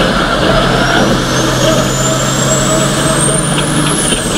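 Ford Copa Truck race truck's diesel engine running hard, heard from inside the cab, its note holding steady. A thin high whine climbs slowly over the engine and drops off about four seconds in.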